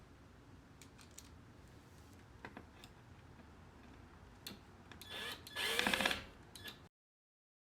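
Power drill driving a screw to fasten a front splitter lip to the underside of the bumper: a brief burst of the motor, rising in pitch, about six seconds in, after a few faint handling clicks.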